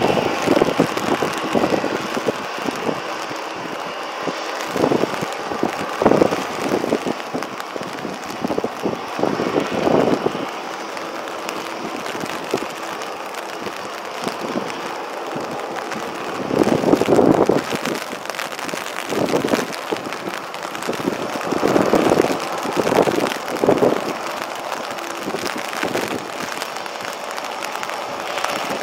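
Airbus A320 jet engines running at low taxi power, a steady faint whine under rain hiss. Wind gusts buffet the microphone several times, loudest around a third and again about two thirds of the way through.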